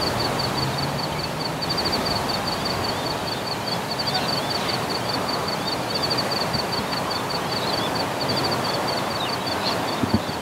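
Evening outdoor ambience over a grassy field: a steady high-pitched chirping in rapid pulses that come in repeated clusters, with scattered short bird chirps, over a steady background rush.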